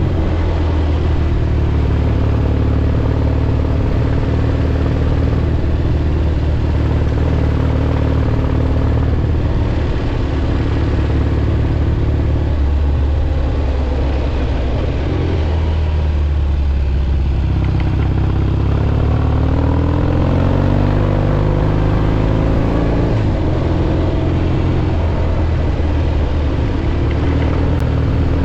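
1967 Triumph Bonneville T120's 650 cc parallel-twin engine running under way, heard from the rider's helmet. The note eases off slightly around the middle, then rises and falls several times in the second half.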